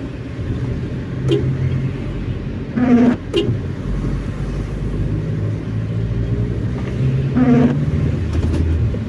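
Car cabin noise while driving: a steady low engine and road hum. A short pitched squeak-like sound comes about 3 s in and again near the end.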